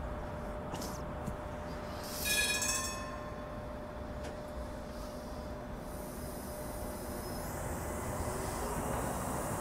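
Vossloh Citylink tram-train (Class 399) rolling slowly along street track, a steady rumble and hum that grows louder toward the end as it draws closer. About two seconds in, a short high-pitched ringing tone sounds, the loudest moment.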